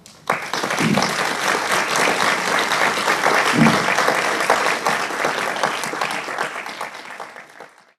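Lecture audience applauding. The clapping starts abruptly just after the start, stays dense and even, and fades away near the end.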